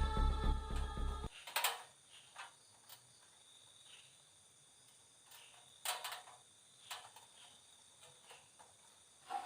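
Background music cuts off about a second in. After that comes a quiet night background of steady high insect trilling, crickets, with a few faint scattered knocks or rustles.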